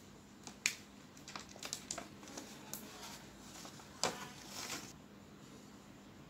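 Thin plastic cake tray being handled: a run of light clicks and crackles, then a louder tap about four seconds in and a short scraping rustle as the chocolate Swiss roll is lifted out of it.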